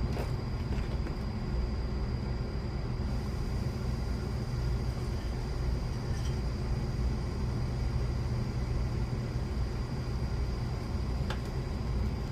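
A steady low rumble with a thin, steady high whine over it and a few faint clicks.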